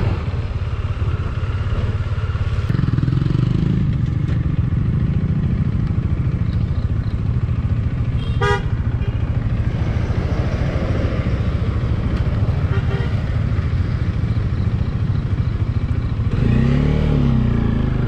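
Bajaj Dominar 400's single-cylinder engine running steadily under way. A short horn toot comes about eight and a half seconds in, and the revs rise and fall near the end.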